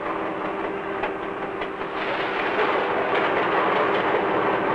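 Freight train running at speed, a steady rumble and clatter of wheels on rails that grows louder over the first few seconds.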